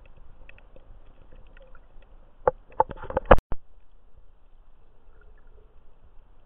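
Underwater sound picked up by a submerged camera: a low rumble of water with faint scattered clicks. About two and a half seconds in comes a second-long cluster of loud knocks and thumps on the camera, ending in one sharp click.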